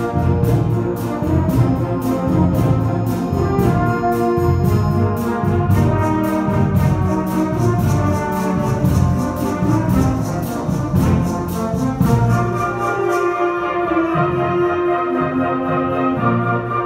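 Live concert band playing, with brass carrying the tune over a steady percussion beat; the beat drops out near the end and the brass holds sustained notes.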